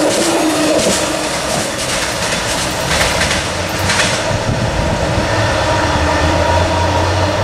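Amtrak passenger cars rolling past at speed, the wheels clicking over rail joints in a steady rattle. About four seconds in the last car passes and the noise drops as the train pulls away, leaving a low steady drone.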